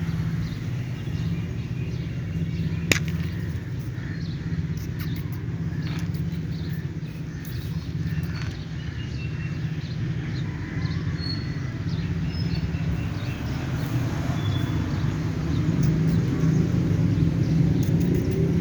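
Outdoor background: a steady low rumble, with faint short chirps scattered through and one sharp click about three seconds in.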